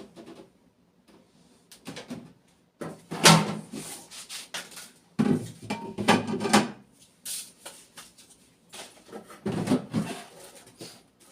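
Parts of a new refrigerator being handled and moved about: irregular bursts of knocks, scrapes and rattles, loudest in several clusters in the middle and near the end.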